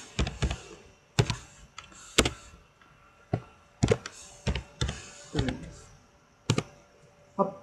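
Typing on a computer keyboard: a dozen or so separate keystroke clicks, unevenly spaced, as a short phrase is typed a key at a time.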